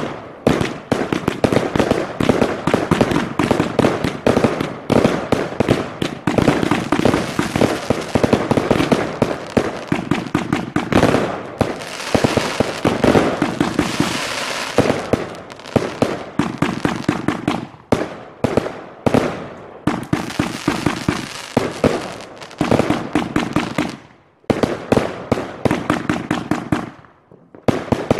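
Dense, rapid bangs and crackles of many fireworks and firecrackers going off all around, thickening into a steady crackle about halfway through, with two short lulls near the end.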